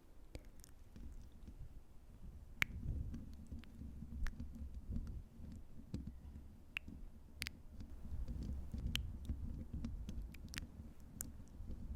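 Close-miked ASMR trigger sounds: scattered sharp, sticky clicks over a low rubbing rumble against the microphone that begins a few seconds in.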